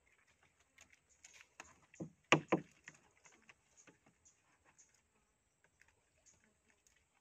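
A fish trap being handled: scattered light clicks and knocks, with a few louder thumps about two seconds in.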